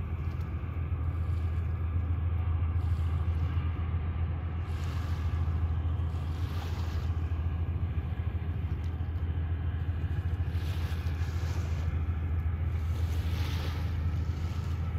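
Steady low drone of a towboat's engines pushing a barge across calm bay water, with small waves washing softly at the shore now and then.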